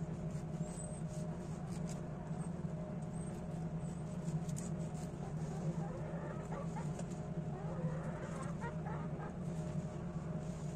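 A knife blade scraping compost off the root end of harvested oyster mushrooms in light, scratchy strokes, over a steady low hum. A faint wavering whine comes in about six seconds in and lasts a few seconds.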